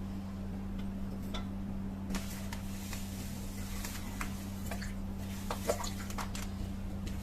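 Light metallic clicks and taps of small hand tools being handled, with a short scraping stretch about two seconds in and a sharper tick near the end, over a steady low electrical hum.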